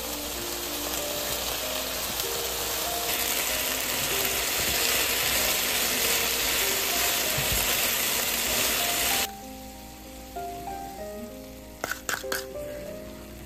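Chicken and eggplant sizzling in a frying pan as they are stir-fried. The sizzle grows louder about three seconds in and cuts off suddenly after about nine seconds. A few sharp clicks follow near the end.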